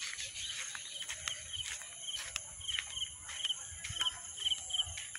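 Outdoor insect chorus shrilling steadily at a high pitch, with a short double chirp repeating a little over twice a second.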